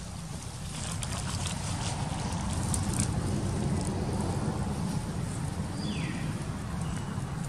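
Outdoor ambience: a steady low rumble with a few faint crackles of dry leaves.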